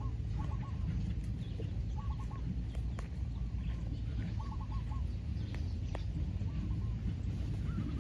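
Spotted doves cooing in short phrases of three or four quick notes, repeated about every second or so. Two sharp clicks near the middle and a steady low rumble underneath.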